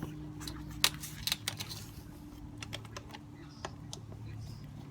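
Hand tools clicking and tapping on metal as the front-axle pinch bolts are nipped up: a few sharp, irregular clicks, the loudest about a second in, over a faint steady hum.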